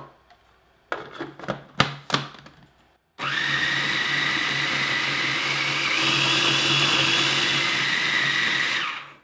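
A few plastic knocks and clicks as the lid is fitted onto a food processor bowl. Then the food processor motor runs steadily for about six seconds, blending ground peanuts with added salt and honey into peanut butter. Its whine rises slightly midway, and it stops just before the end.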